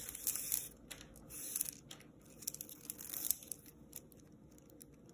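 Plastic pony beads clicking and rubbing together as a string is threaded through a beaded cuff: scattered light clicks and rustles that die away after about three and a half seconds.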